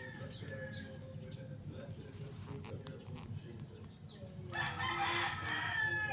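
A rooster crows once, starting about four and a half seconds in and lasting about a second and a half, the loudest sound here. Small birds chirp sparsely throughout over a steady low rumble.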